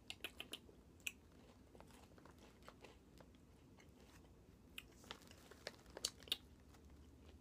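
Crunching of ridged potato chips being chewed, a scatter of short crisp crunches, grouped in the first second and again about five to six seconds in.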